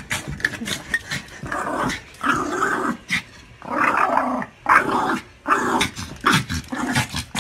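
Small dog giving a string of short growls, play-growling.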